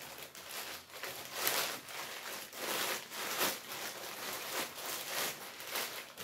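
Packaging rustling and crinkling in irregular strokes as it is handled and opened by hand to take out a pair of football socks.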